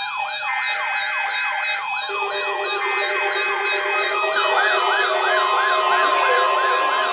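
Several weather radio receivers' siren-style alert alarms sounding together: rapid rising-and-falling sweeps, about two to three a second, layered over steady alert tones. They are set off by an emergency alert broadcast being received.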